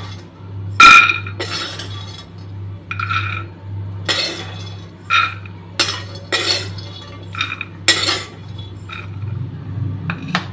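Steel ladle scraping and clinking against a metal kadhai as dry-roasted peanuts are scooped out, the nuts rattling against the metal: about a dozen short, sharp clinks, several with a ringing tone. A low steady hum runs underneath.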